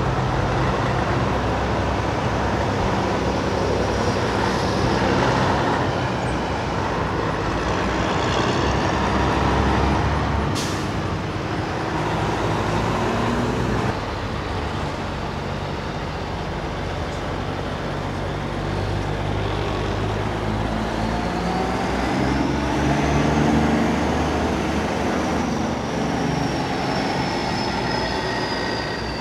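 Diesel engines of big-rig semi-tractors running as the trucks pull slowly past, with a brief sharp high crack about ten seconds in. Near the end a high whine rises and then slowly falls.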